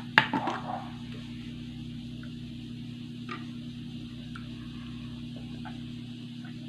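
A plastic water bottle's cap is opened with a loud click near the start, then a person drinks from the bottle: a few faint swallows and small ticks over a steady low hum.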